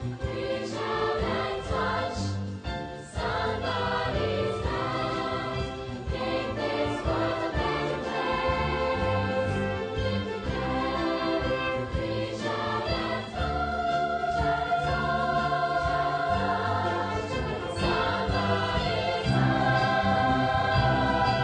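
A young people's choir singing a song with musical accompaniment, ending on louder, long-held notes.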